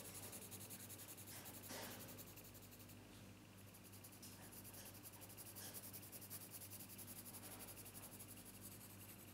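Faint scratching of an HB pencil on drawing paper as the lead is worked back and forth to darken a shaded area, over a low steady hum.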